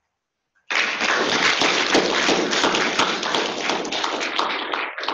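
Audience applauding: many hands clapping, starting about a second in, then thinning to a few scattered last claps near the end.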